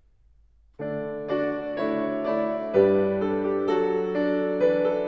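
A hymn played in full chords on a keyboard, starting about a second in, with a new chord about every half second.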